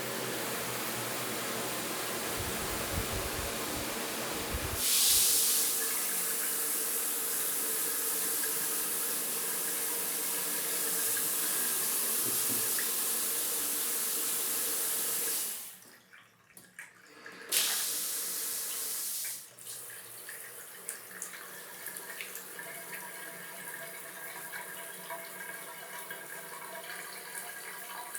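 Bathroom shower water running steadily, briefly louder about five seconds in. It stops about halfway through, comes back on strongly a couple of seconds later, then settles into a softer spatter with many small splashes.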